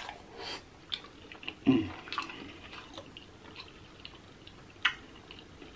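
Close-miked, wet chewing and lip smacking of a sauce-dipped boiled potato, with scattered mouth clicks. A louder wet burst comes just under two seconds in and a sharp smack about five seconds in.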